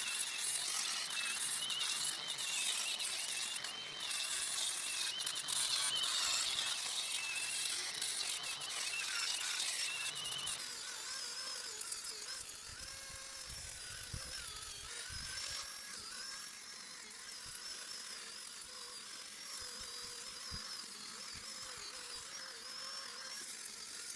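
A handheld power tool whines at high speed against metal while cleaning up weld areas on a vehicle's rear axle housing before painting. For about the first ten seconds it runs under load with dense scratching; then it turns quieter and its whine rises in pitch, as if eased off the metal.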